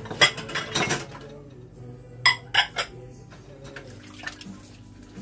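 Several sharp clinks and knocks of hard objects against each other in two short clusters, near the start and again about two seconds in, with faint background music.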